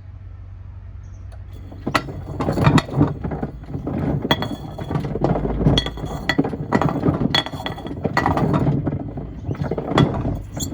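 Stones and pieces of wood tumbling in the drum of a Miele washing machine, clattering and clinking against the drum in irregular knocks about once a second. The knocking starts about two seconds in, after a low steady hum.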